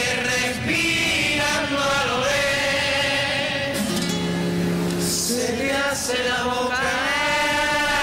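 A song sung in Spanish by a group of voices over music, with long held notes that waver.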